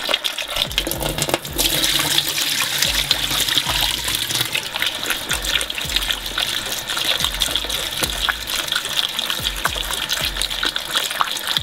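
Cold tap water running into a bowl of cut raw potatoes, rinsing off their starch, while a hand stirs the pieces and they knock against each other. The water gets louder about a second and a half in.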